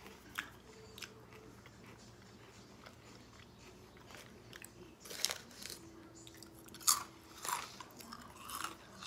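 Mouth-closed chewing of crunchy spiced cracker chips, with faint crisp crackles at first and a few sharper crunches from about halfway through.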